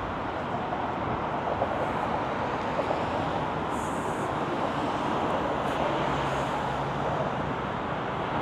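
Steady city traffic noise of cars passing on the street.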